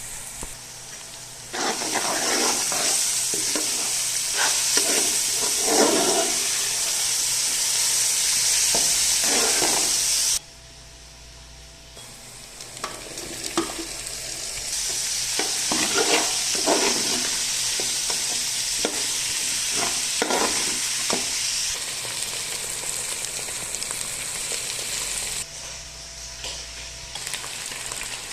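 Food sizzling as it fries in a pan, with a spoon stirring and scraping against the pan. The sizzling breaks off suddenly about a third of the way in, then starts again.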